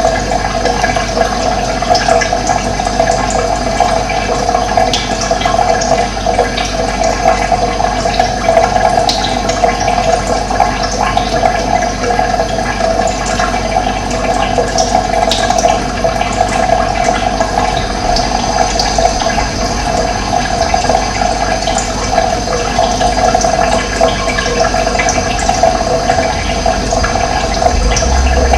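Running water flowing steadily, with faint, scattered high bird chirps.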